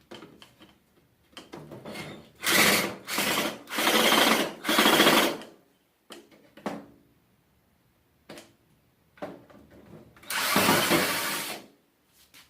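Power drill/driver whirring in short bursts while backing out screws: four quick runs a couple of seconds in, then one longer run near the end, with small clicks and handling between them.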